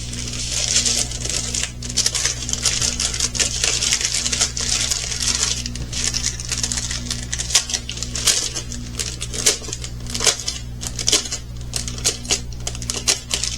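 Small plastic bags of resin diamond-painting drills rattling and crinkling as they are handled, with many quick irregular clicks.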